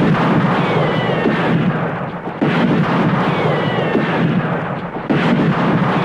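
Gunshot sound effects in a staged shootout: the echoing tail of one shot, then two more heavy shots about two and a half seconds apart. Each shot has a long rumbling decay and a faint falling whine.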